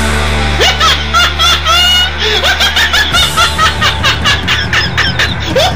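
Loud laughter in quick repeated bursts, over music with a deep held bass note that breaks into a pulsing beat about three seconds in.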